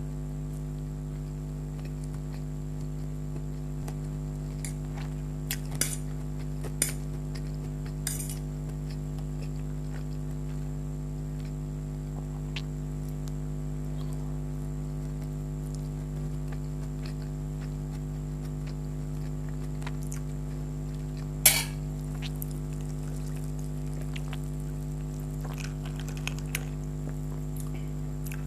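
Cutlery clinking against a plate while eating noodles: a handful of short, sharp clinks, the loudest about two-thirds of the way through, over a steady low hum.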